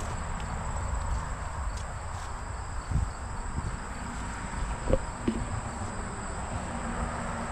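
Steady high insect buzz over low rumbling noise, with a couple of short knocks about three and five seconds in.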